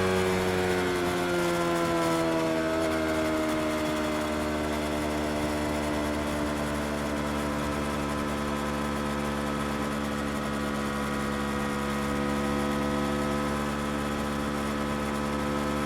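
Yamaha R25's parallel-twin engine with its revs falling over the first few seconds, then holding a steady, even note.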